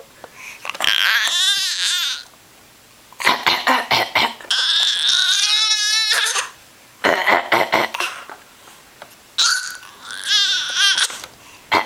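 A young child's high-pitched, wavering vocal noises (squeals and cry-like wails) in about five bursts of one to two seconds each, with short pauses between.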